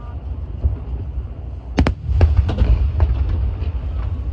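Fireworks going off over a steady low rumble: a sharp double crack about two seconds in, then a few weaker pops and bangs.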